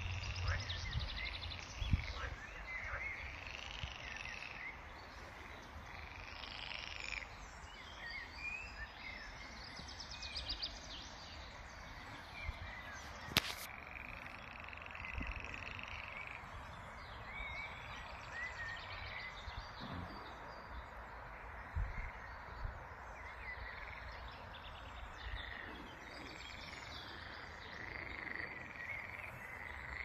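Frogs calling repeatedly in a chorus of short croaks and pulsed trills, with bird chirps among them. A single sharp click sounds about halfway through.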